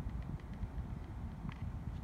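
Uneven low rumble of wind on the microphone, with a few faint clicks, one of them about one and a half seconds in.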